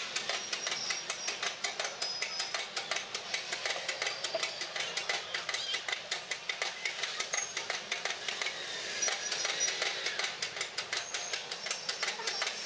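Rapid, fairly even metallic clicking and rattling while a hydraulic press works on an auto-rickshaw fork, pressing its pivot pin.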